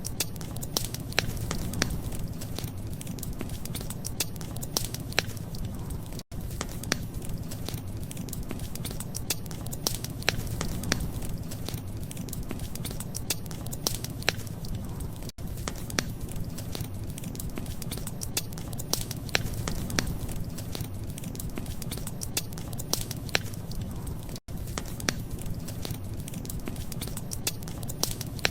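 Wood fire crackling, with frequent sharp pops and snaps over a steady low rumble. The sound cuts out for an instant three times, about nine seconds apart.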